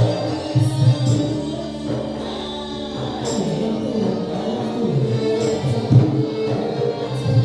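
Live Malay ronggeng music: a small ensemble of violin, guitar and frame drums playing a dance tune, with a voice singing over it and a steady hand-drum beat underneath.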